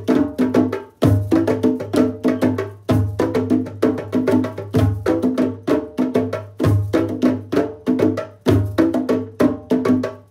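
Hand drum ensemble of a pair of congas and two smaller hand drums playing together in a fast, steady interlocking rhythm of rapid slaps and tones, with a deep bass stroke landing about every two seconds.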